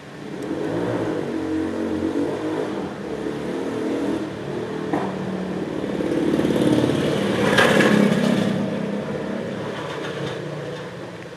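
A motor vehicle's engine running, growing louder to a peak about eight seconds in and then fading away.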